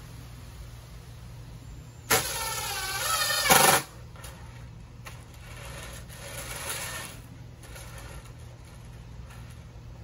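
Cordless drill/driver driving a screw into plywood: one short run of the motor about two seconds in, lasting about a second and a half, wavering in pitch and getting louder just before it stops as the screw seats.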